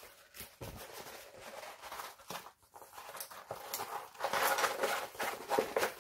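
Rustling and crinkling of plastic and paper packaging being handled, a run of small scrapes and crackles that grows louder and busier in the second half.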